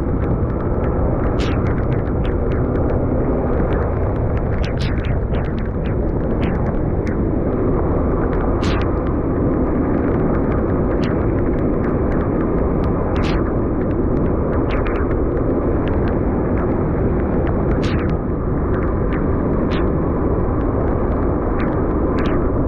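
Steady rumble of a vehicle on the move in rain, with sharp raindrop ticks scattered through it.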